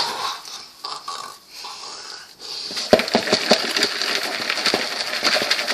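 Salt shaken in a few short bursts onto popcorn, then a dense crackling rattle of popcorn kernels shifting in their container from about three seconds in.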